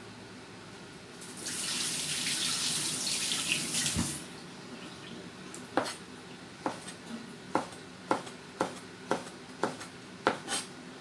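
Kitchen tap running for about three seconds as a cleaver is rinsed under it. Then comes a cleaver chopping strips of fresh coconut meat on a plastic cutting board: about nine sharp knocks, roughly half a second apart.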